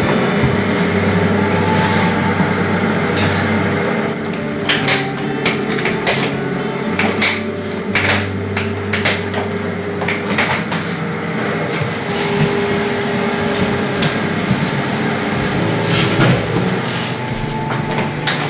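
Hard plastic pet carrier being closed: the top shell is pressed down onto the base and latched, giving a run of sharp plastic clicks and knocks between about four and eleven seconds in. A few more knocks come near the end as the carrier is handled. A steady background with held low tones runs underneath.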